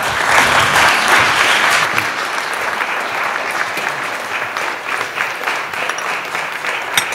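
Audience applauding, a dense patter of many hands clapping, loudest over the first couple of seconds and then carrying on a little softer.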